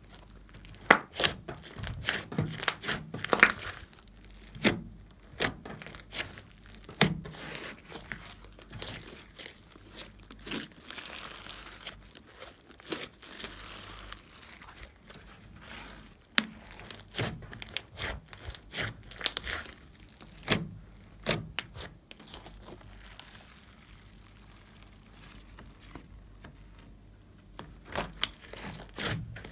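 Hands stretching, folding and squeezing a large mass of thick, sticky slime, giving irregular clicks and pops as it is pulled apart and pressed, with a quieter stretch about three-quarters of the way through.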